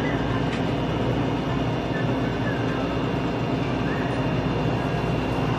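Steady low rumble and hum with a faint constant high-pitched whine: continuous machine or room background noise.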